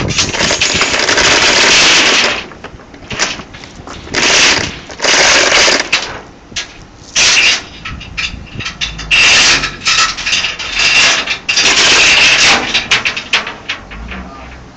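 Steel chain and ratchet binder rattling and clicking in repeated bursts of about a second or two, with scattered clicks between them, as the chain is pulled through and tightened around the cable drum.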